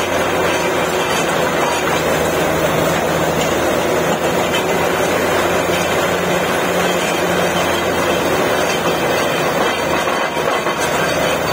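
Truck-mounted borewell drilling rig running steadily with its air compressor, air blowing muddy water and cuttings out of the bore.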